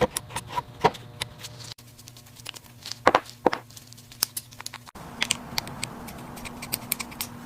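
Scattered sharp clicks and clatter of small metal parts and hand tools during engine assembly work, over a steady low hum. The background changes abruptly twice.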